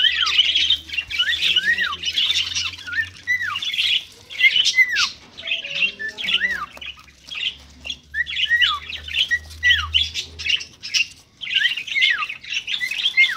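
Cage birds chattering and squawking: a dense, continuous twitter with many short calls that drop sharply in pitch, several in quick succession.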